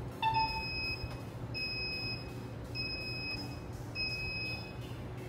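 Matrix upright exercise bike console beeping: a short lower beep as a button is pressed, then four higher beeps at an even pace, each about half a second long.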